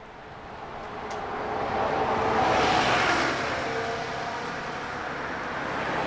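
A road or rail vehicle rolling past: a steady noise that swells to its loudest about three seconds in and then eases off, with a faint steady whine underneath.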